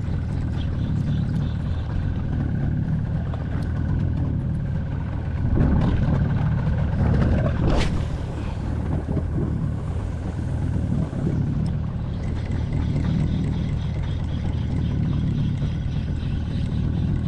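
Steady low rumble of wind and water around a small open fishing boat at sea, with a brief swish about eight seconds in as the spinning rod is cast.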